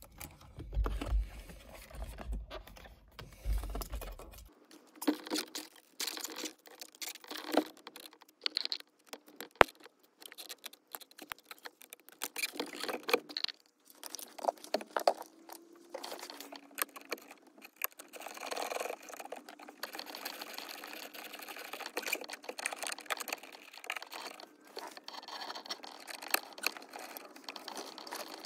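Scattered plastic clicks, knocks and handling noises as wiring connectors are pushed together and the airbag module is pressed back into a Mercedes steering wheel, with one sharper click about ten seconds in.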